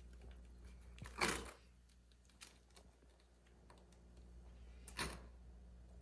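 A rabbit crunching and scraping at a lump of hard, freezer-frozen snow: faint scattered small clicks, with two louder short scraping crunches, about a second in and again about four seconds later.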